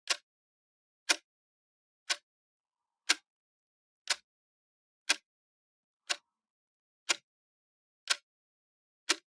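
Clock ticking steadily, one sharp tick each second, with nothing else heard between the ticks.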